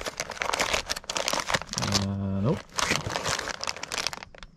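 Plastic soft-plastic lure packets crinkling and rustling as they are handled and pulled from a mesh tackle bag, in irregular bursts. About two seconds in, a short low hum that rises in pitch at its end.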